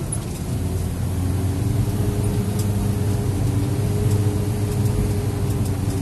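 Shuttle vehicle's engine running steadily under the cabin while it drives down a narrow mountain road, a low even hum heard from inside, with a few faint ticks or rattles.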